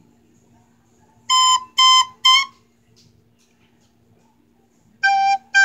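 Recorder played in short blown notes: three separate notes on the same pitch, a pause, then three notes on a lower pitch about five seconds in.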